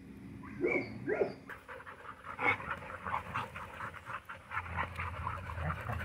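Dogs panting rapidly while they wrestle and scuffle in play, with two short dog vocal sounds in the first second or so.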